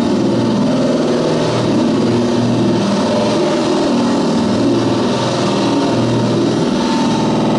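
Harsh noise music: a loud, dense wall of distorted electronic noise with an irregular, stuttering low rumble over a steady hiss, much like a running engine. Near the end it settles into a steady pitched drone.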